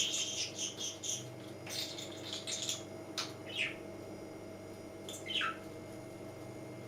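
Budgerigar chirping and warbling in short runs of high notes, then two single downward chirps, after which it falls quiet.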